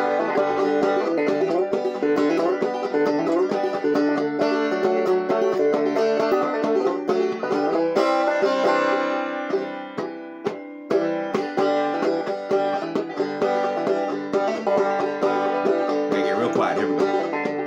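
Banjo played clawhammer style, a steady run of plucked notes in an instrumental break. The playing thins and briefly drops away about ten seconds in, then picks up again.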